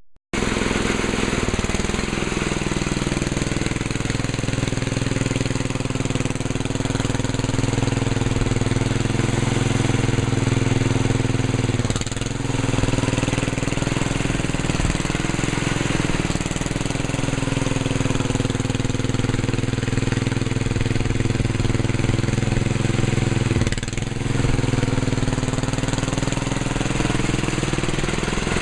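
Engine of a 1968 Sears 10 XL garden tractor running as it is driven, the engine speed rising and falling a few times.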